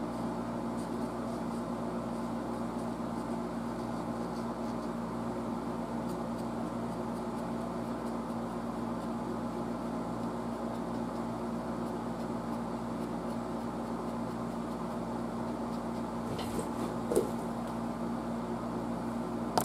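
Steady machine hum, a low droning tone over a light hiss, with a brief click and short squeak about seventeen seconds in.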